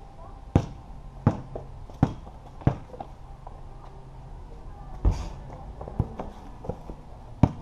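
A basketball bouncing hard on a concrete patio: four dribbles about two-thirds of a second apart, then after a pause a few more scattered thuds.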